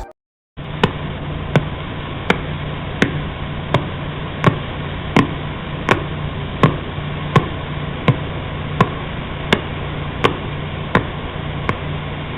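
Radio signal of pulsar PSR B0329+54 converted to audio: sharp clicks repeating about every 0.7 seconds, one per rotation of the neutron star, over a steady static hiss. It starts about half a second in.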